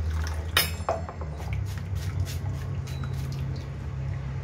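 Water poured from a steel cup through a stainless-steel mesh strainer of ground crab pulp, dripping into a steel bowl below as the juice is strained out, with a sharp metal clink about half a second in and light ticks and drips after. A low steady hum runs underneath.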